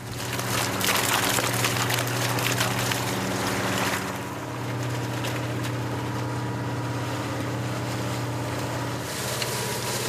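A boat engine running steadily with a low, even hum, while water gushes and splashes loudly for the first four seconds, then eases to a softer wash.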